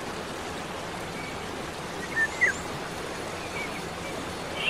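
Outdoor ambience: a steady background hiss with a few short bird chirps, the loudest pair about two seconds in and another near the end.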